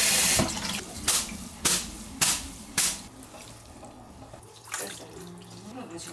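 Kitchen tap water rushing over noodles being rinsed in the sink, cut off about half a second in. Then come four sharp knocks about half a second apart, with water dripping and light handling noises.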